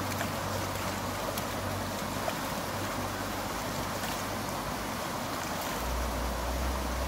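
Steady rush of a shallow trout stream running over a riffle, with a low rumble of wind on the microphone that grows stronger near the end.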